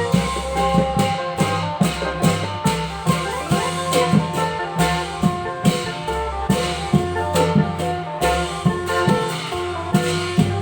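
Thai klong yao long-drum band music: regular drum strokes over held melody notes and a steady bass line.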